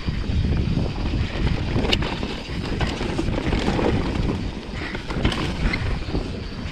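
Mountain bike descending a rocky dirt trail at speed: wind rushing over the microphone and the tyres and bike rumbling and rattling over the ground, with sharp knocks about two seconds in and again after five seconds.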